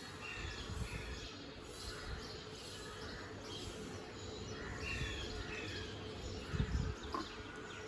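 Small birds chirping outside an open window, with short high calls scattered throughout over a faint steady background. There is a brief low bump near the end.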